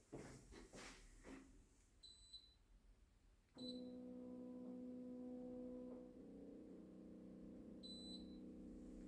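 Split air conditioner's indoor unit beeping short and high as it takes remote-control commands: a double beep, a single beep, and another double beep near the end. With the single beep a faint steady hum starts and shifts in pitch about two seconds later.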